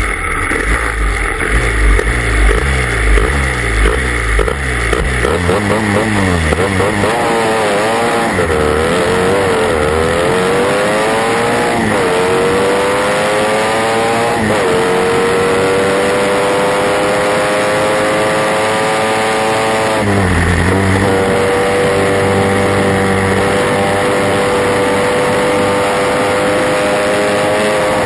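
Triumph Thunderbird 650cc parallel-twin engine of a racing sidecar outfit at full race. Low and uneven for the first few seconds, the revs then climb, drop back sharply at two gear changes, and run high and steady, with one brief dip and recovery about two-thirds of the way through.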